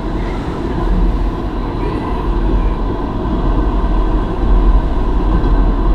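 Stadler Variobahn light-rail tram running along its track, heard from inside the driver's cab as a steady rumble with a low hum.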